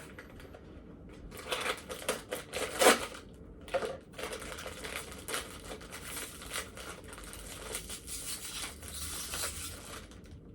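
Plastic snack packaging crinkling and being torn open, with sharp crackles, the loudest about three seconds in, and steady crinkling after that.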